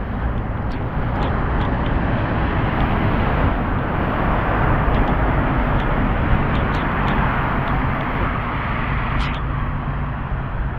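Road traffic on a wet road: a steady hiss of tyres on the wet surface and engine rumble, swelling in the middle as vehicles pass, with a few light ticks.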